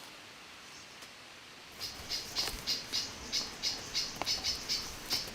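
High, short chirps from a wild animal, repeated evenly about three times a second, starting about two seconds in over a quiet natural background.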